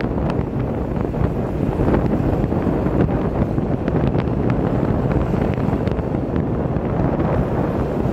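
Wind noise on the microphone of a phone filming from a moving vehicle, over the steady noise of city traffic.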